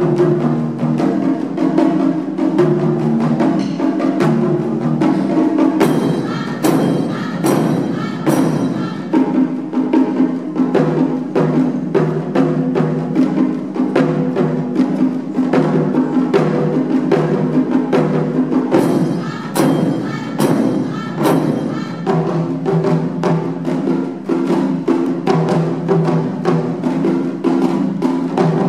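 Taiko drum ensemble playing: barrel-shaped nagado-daiko drums struck with wooden bachi sticks in a fast, continuous rhythm. Clusters of sharper, brighter cracks stand out about six seconds in and again about twenty seconds in.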